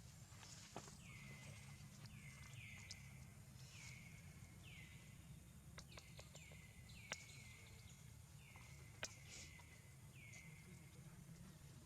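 Faint, repeated short animal chirps, each falling in pitch, about one a second, with a few sharp clicks and a steady low hum underneath.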